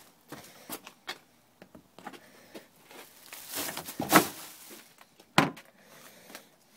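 A plastic wheelie bin being handled: scattered light knocks and footsteps, a rustling stretch about three and a half to four seconds in, then one sharp thump about five and a half seconds in.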